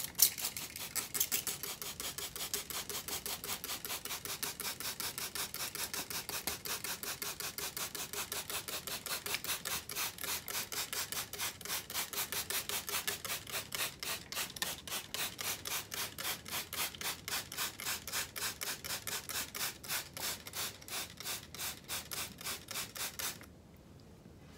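A small hand tool raking and scratching across the soil surface of a bonsai pot in fast, even strokes, about four a second, stopping suddenly about a second before the end.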